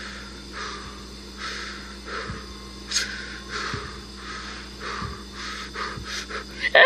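Soundtrack of a Lego horror animation heard through a handheld game console's small speaker: a rhythmic run of short breathy puffs, about one every 0.7 s, one louder one about halfway through. Right at the end a loud, shrill, scream-like jumpscare sound starts.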